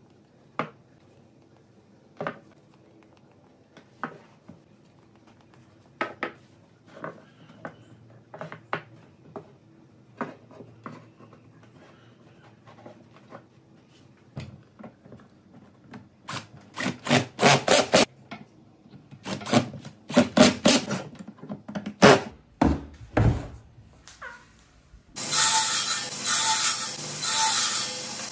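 Small hardwood segments of white maple and rosewood set down and fitted together by hand on a tabletop: sparse light wooden clicks at first, turning into quick clusters of clattering knocks in the second half. Near the end a loud, steady, evenly pulsing noise comes in.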